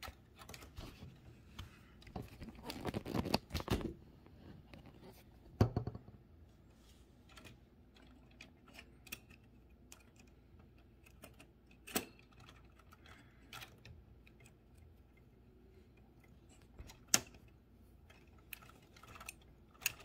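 Metal key ring pliers clicking and tapping on a Smith Premier typewriter key while a key ring is pressed back on: a short clattering stretch a few seconds in, then single sharp clicks several seconds apart.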